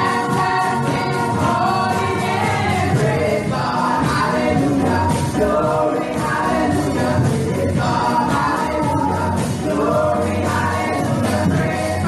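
A women's praise team singing a gospel praise song together into microphones, over backing music.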